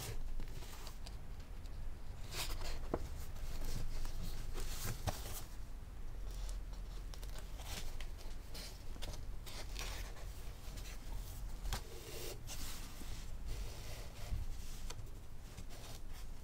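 Paper signatures rustling and thread rasping through the sewing holes of a hand-sewn text block, in irregular short rustles and scrapes as the pages are turned and the stitch is pulled tight.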